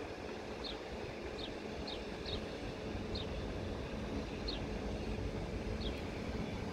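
A small bird chirping, short high calls about seven times at irregular gaps, over a steady low rumble of wind and a train approaching in the distance.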